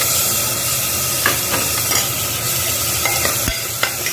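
Drumstick pods and potato pieces sizzling in hot oil and tomato-spice paste in the base of a pressure cooker, while a metal ladle stirs them with a steady hiss and a couple of scraping clinks against the pot.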